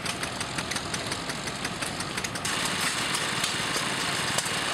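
Antique stationary flywheel gas engines running, with a regular rhythm of sharp ticks, several a second, over a low hum. A little over halfway through, the sound jumps to a louder, busier clatter with more hiss, from another group of old engines.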